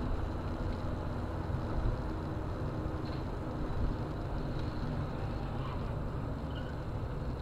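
Steady low rumble of a car driving at road speed, engine and tyre noise heard from inside the cabin.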